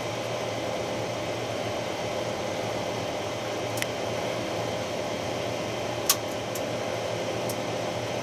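Steady hum and whir of cooling fans on a bench of electronic test equipment. Over it come a few sharp clicks from the knobs and switches of a test instrument being set, the loudest about six seconds in.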